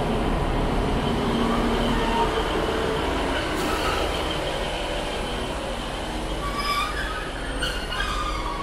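A Northern diesel multiple unit runs slowly out past the platform, its rumble slowly fading. Short high wheel squeals come a few times near the end.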